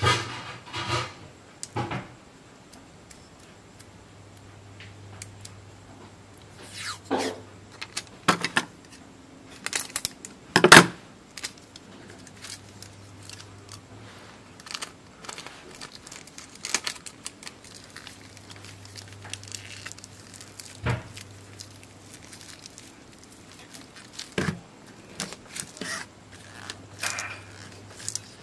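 Handling noises of a flat lithium polymer battery pack in its paper and tape wrapping: rustling and crinkling, with scattered knocks on a wooden workbench, the loudest about a third of the way through.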